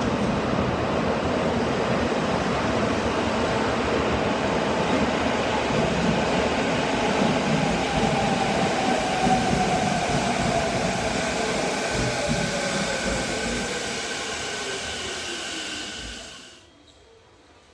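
Electric commuter train running through an underground station, wheels rumbling on the rails with echo off the tunnel walls. In the second half a whine from the train falls steadily in pitch, and the sound cuts off suddenly near the end.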